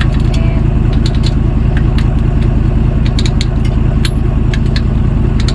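Vehicle engine running steadily with a deep, even rumble, with scattered light clicks over it.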